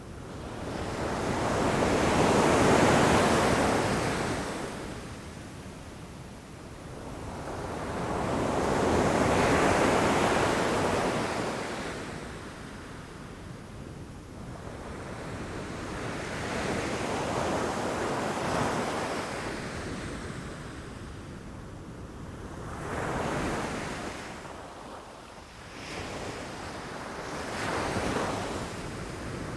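Ocean waves breaking against rocks, each one swelling to a crash and washing back: two big breakers in the first half, then several smaller ones.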